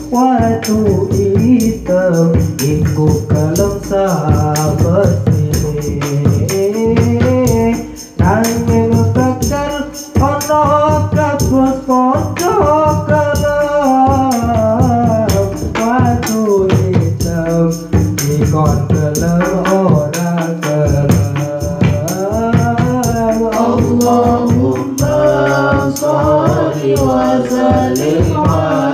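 Sholawat devotional song sung through microphones, the voice winding through an ornamented melody, over hand-played rebana frame drums and jingling kecer percussion.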